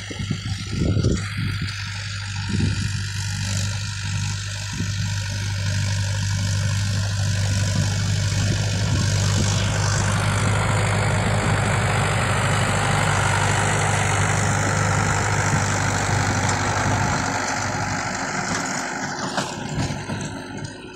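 Mahindra 415 tractor's diesel engine running at a steady speed while it drives a rotavator through the soil. The engine and tilling noise grow louder through the middle and ease off near the end.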